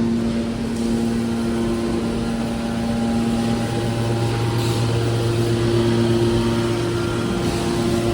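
Machinery running with a steady mechanical hum made of several held tones that come and go, and a deeper low hum that grows stronger about halfway through.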